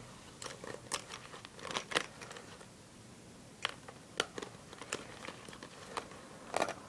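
Fingers handling the zip pocket of a glossy plastic makeup bag, making scattered crinkles and sharp clicks: a quick cluster in the first two seconds, then single ticks about every half second.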